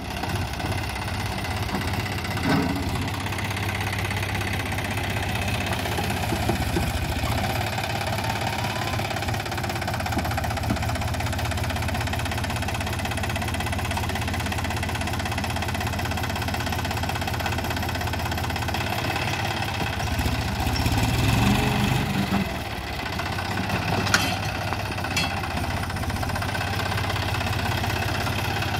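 John Deere tractor's diesel engine running steadily as it powers a rear-mounted hydraulic loader scooping and lifting sand. The engine grows louder for a couple of seconds a little past two-thirds of the way through, and a few sharp knocks come over the top.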